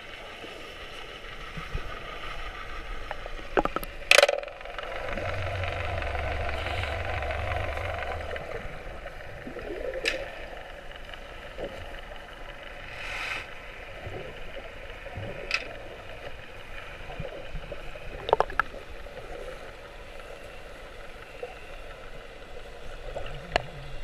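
Muffled underwater sound picked up by a camera held just below the surface: a steady wash of water noise with scattered sharp clicks and knocks, the loudest about four seconds in. A low rumble runs for about three seconds starting around five seconds in.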